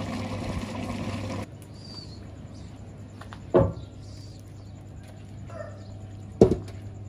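Rice bubbling in water in a large cooking pot, cut off suddenly after about a second and a half. Then two sharp knocks about three seconds apart on the cloth-sealed lid of a big aluminium deg, the second as a concrete weight is set down on it.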